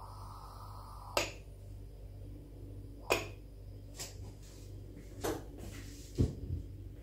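Coffee pouring from a stovetop moka pot into a ceramic mug for about the first second, then about five sharp clinks and knocks as metal and crockery are handled.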